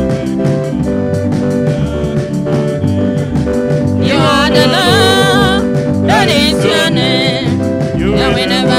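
Live gospel music through a PA: a band plays a steady beat, and about four seconds in two male singers come in on microphones, singing with vibrato.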